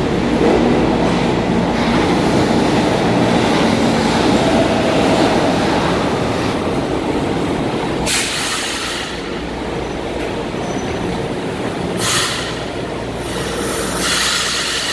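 Subway trains running through an underground metro station: a steady rumble with a low hum, and three short, high hissing screeches about eight, twelve and fourteen seconds in.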